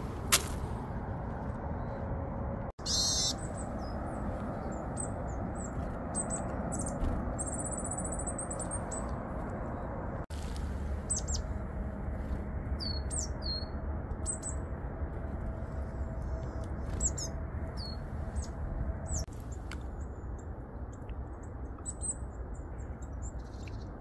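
Small wild songbirds giving short, high chirps and calls again and again over a steady low background hiss. A sharp click comes just after the start, and a brief rustling burst about three seconds in.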